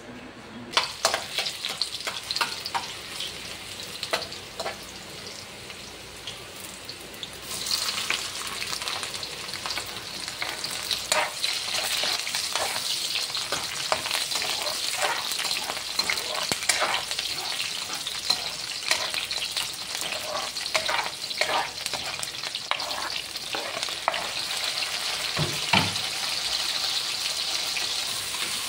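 Food sizzling in hot oil in a frying pan, with a metal spoon scraping and clicking against the pan as it is stirred. Before the sizzle there are only scattered knocks; the sizzle starts suddenly about seven seconds in and then runs steadily, with one louder knock near the end.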